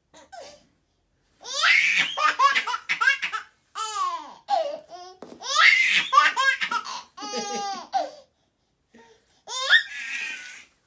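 Baby laughing in about five bursts of giggles and belly laughs, with short pauses between them.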